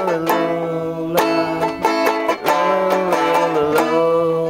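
Acoustic plucked string instruments playing a tune together, with quick picked notes over held tones and a sustained melody line that slides up and down in pitch.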